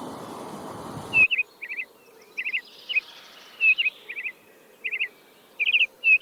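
A steady hiss cuts off about a second in. Then a bird chirps repeatedly: short, high notes in quick groups of two or three.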